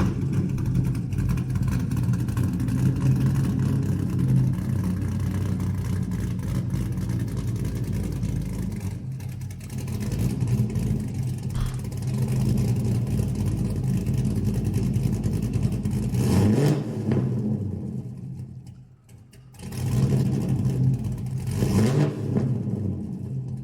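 Chevrolet Corvette C5's 5.7-litre small-block V8 idling steadily, then revved twice: once about two-thirds of the way through and again near the end.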